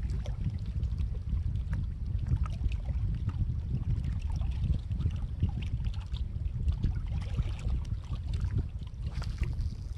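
Wind buffeting the microphone outdoors, a steady fluttering low rumble, with faint scattered small clicks over it.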